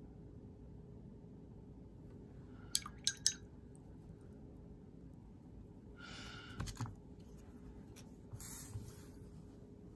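Small watercolor-painting sounds from a brush and painting tools: three quick taps a little under three seconds in, then two short scratchy brushing noises, about six and eight and a half seconds in.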